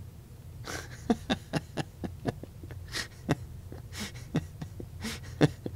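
A series of small sharp clicks, several a second at first and then more spaced out, from a tactile push button on an electronic dice kit board being pressed again and again, over a low steady hum.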